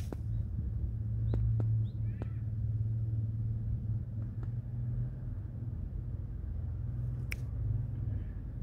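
Outdoor background noise: a steady low rumble with a few faint clicks and brief high chirps.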